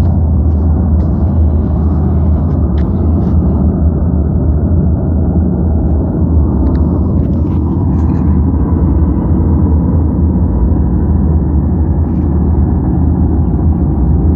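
A loud, steady, deep rumbling drone with no let-up, the kind of unexplained low 'sky sound' or hum reported from many places. A few faint clicks sound over it in the first few seconds.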